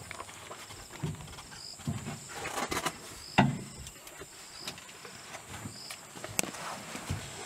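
Night insects: a steady high buzz and short chirps repeating about once a second. A few dull thumps come through, the loudest about three and a half seconds in.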